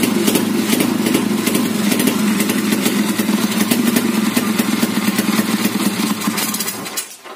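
Honda C70 fitted with a 200cc sleep engine, running steadily; the sound cuts off abruptly about seven seconds in.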